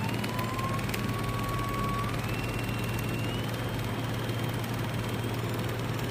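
Laser deposition welding machine running with a steady low hum. Over it, the rotary chuck's drive gives a faint thin whine that steps up in pitch about two seconds in and again about a second later as the rotation speed is turned up.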